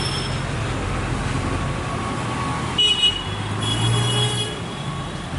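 Steady road traffic noise with vehicle horns: a short toot about three seconds in, then a longer horn note with an engine drone about a second later.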